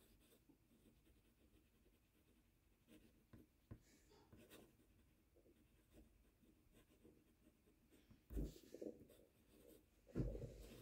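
Fountain pen nib writing on thin Tomoe River paper, a faint irregular scratching of pen strokes, with a couple of soft thumps near the end.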